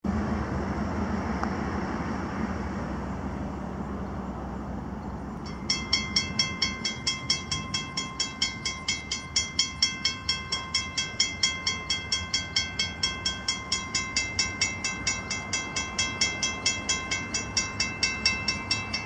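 A car passes, then about six seconds in a railroad grade-crossing warning bell starts ringing, about two strikes a second, as the crossing signals activate for an approaching train.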